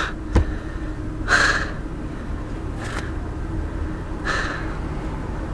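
A man breathing hard, with three heavy exhales about a second and a half apart, over a steady low hum inside a car. There is a short click just after the start.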